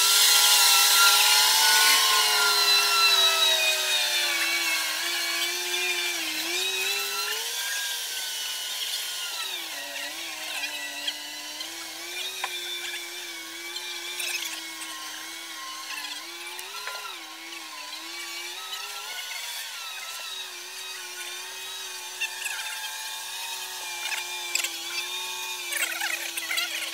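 Mobile boat travel lift driving across the yard with a sailboat hanging in its slings: a steady whine from its drive that wavers a little in pitch, loudest at first and fading as the lift moves away. A few sharp clicks near the end.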